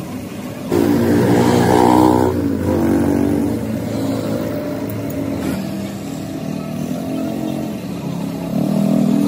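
A motor vehicle engine running close by, rising and falling in pitch, with a hiss from a compressed-air paint spray gun in use. The sound grows louder about a second in.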